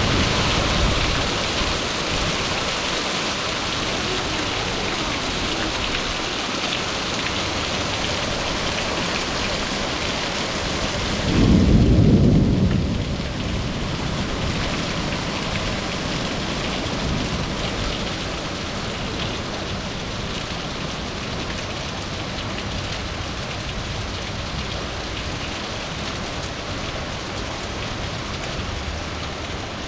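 Hail falling hard in a dense, steady hiss, with a rumble of thunder about eleven seconds in that lasts a couple of seconds.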